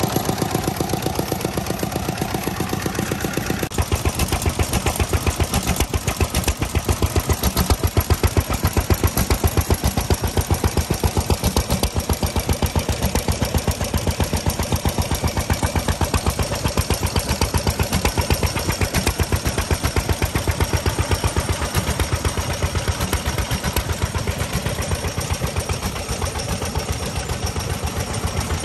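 Vintage single-cylinder stationary engines running steadily, with a quick, even beat of firing strokes. First a Yanmar horizontal water-cooled diesel, then old hopper-cooled kerosene engines with big open flywheels. The sound changes character about four seconds in.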